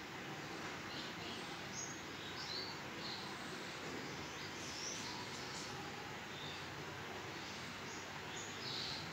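Steady background noise with short, high chirps of small birds scattered through it.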